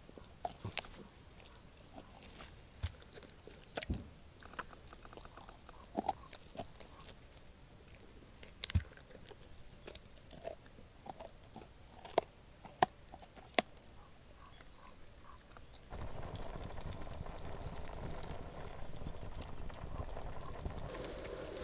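A large dog gnawing and crunching a bone, with irregular sharp cracks as its teeth work the bone. About 16 s in, this gives way to the steady hiss and crackle of a wood campfire under a hanging pot.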